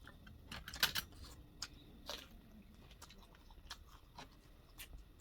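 Close-up eating sounds: chewing and biting with scattered wet mouth clicks and small crunches, loudest in a cluster about a second in.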